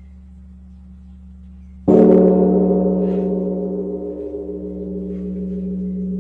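A gong struck once about two seconds in, its many overtones ringing on and slowly fading, over a steady low ringing tone.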